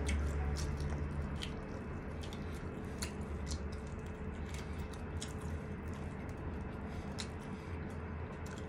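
Close-up mouth sounds of eating grilled chicken by hand: irregular wet clicks and smacks of chewing, over a steady low hum.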